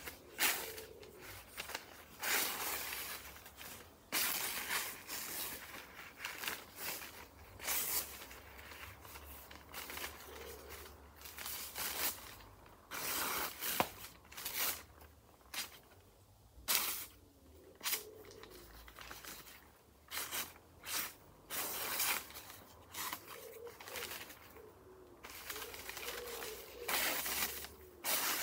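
Newspaper rustling and tearing as a freshly sharpened wood chisel slices through sheets held up in the air, in many short, irregular strokes, testing whether the edge is razor sharp.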